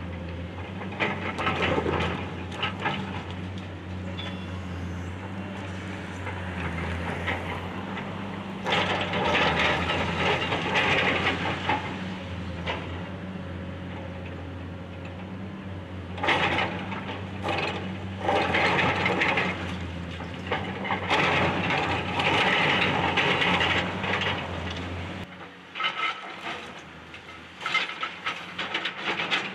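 Caterpillar excavator's diesel engine running steadily while its bucket works at a brick chimney, with several stretches of scraping, cracking and clattering as brick and debris break away and fall. Near the end the engine drone drops away and only scattered clattering remains.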